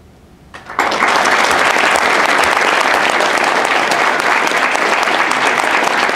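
Audience applauding: a brief lull, then many people start clapping together abruptly less than a second in and keep up a steady, loud applause.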